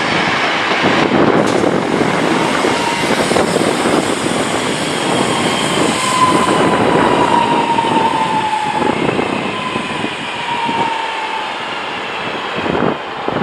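Northern class 323 electric multiple units running through the station: a loud, steady rumble of wheels on rail with some clatter, and an electric motor whine that falls slowly in pitch as a train slows.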